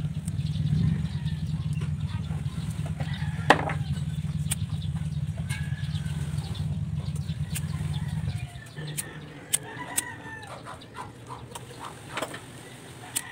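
Chickens clucking and crowing, with a steady low hum that stops suddenly about eight and a half seconds in. Light clicks come from a plastic relay socket and wires being handled.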